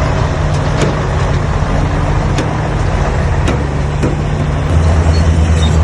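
Heavy diesel engine of earthmoving machinery running steadily, with a few sharp metallic clanks. The engine gets louder about five seconds in.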